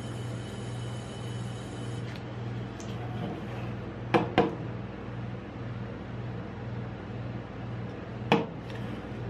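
An aluminium soda can knocking against the metal ice cream cold plate as it is handled: two sharp knocks about four seconds in and one more near the end, over a steady low hum.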